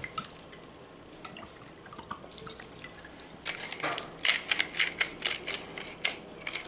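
Hand-twisted stainless-steel pepper mill grinding: a quick run of crisp clicks, about four or five a second, starting about three and a half seconds in, after a few faint small ticks.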